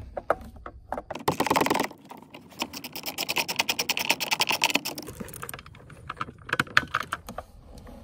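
Hand ratchet wrench with a deep 10 mm socket turning out a module hold-down bolt: runs of rapid pawl clicks. There is a short dense burst about a second in, a longer run in the middle, and scattered clicks near the end.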